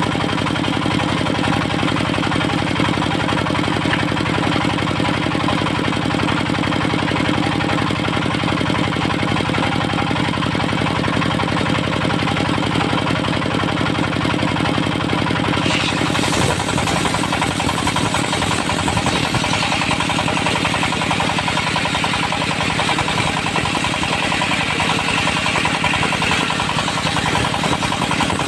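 Diesel-driven portable circular sawmill running steadily. A little past halfway, a harsher, hissing cutting sound rises over the engine as the blade works through teak.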